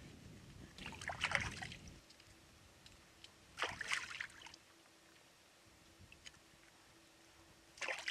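Shallow lake water splashing and sloshing as fish are rinsed by hand at the shoreline: three short bursts of swishing, about a second in, around the middle, and near the end.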